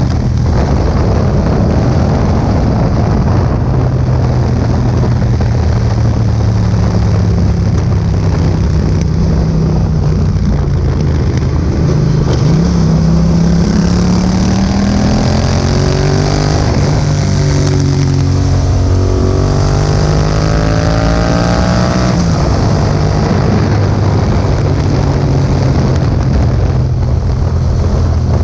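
Yamaha MT-07's parallel-twin engine through an Akrapovic exhaust, running under way with wind noise on the microphone. In the second half it pulls harder, its pitch climbing, dropping at a gear change and climbing again, before falling back to a steady drone.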